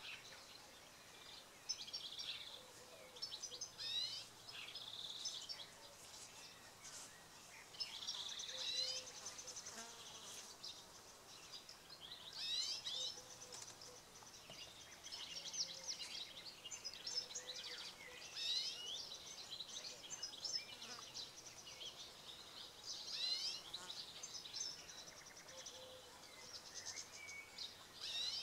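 European green woodpecker fledglings begging: clusters of high, squeaky chirping calls, repeated every few seconds.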